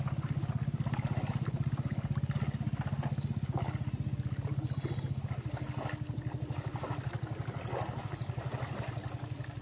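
Small boat engine running steadily with a fast, even pulse, with light trickling and splashing of water.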